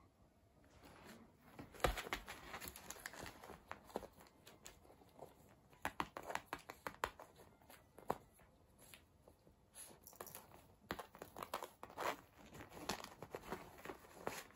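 Cat scrabbling, kicking and clawing at a fabric cushion cover on tatami mats: irregular bursts of cloth rustling and scratchy clicks of claws.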